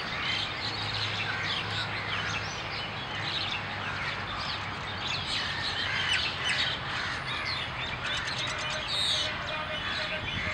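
A chorus of birds chirping and calling, many short overlapping chirps, with a faint steady hum underneath. A quick run of high ticks comes a little before the end.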